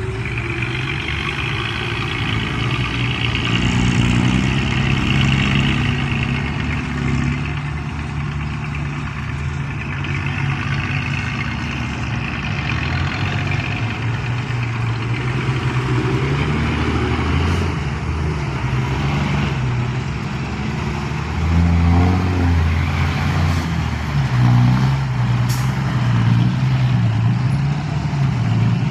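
Excavator's diesel engine running under varying load, its pitch shifting up and down, with a louder, deeper stretch about three quarters of the way through.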